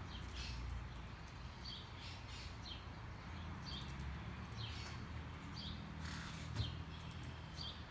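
Small birds chirping: short, high, falling notes repeated every half second or so over a steady low hum, with a single knock about six and a half seconds in.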